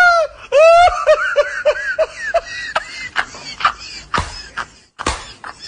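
A man laughing hard: a loud, high, drawn-out shriek that falls in pitch, then a quick run of short ha-ha bursts, trailing off into breathy gasps and a few sharp hits.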